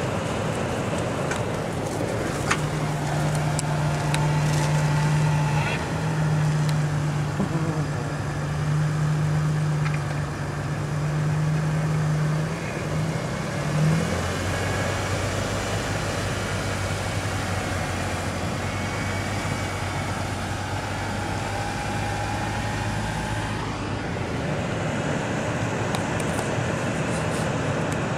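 Truck engine running with a steady low drone that drops lower in pitch about halfway through.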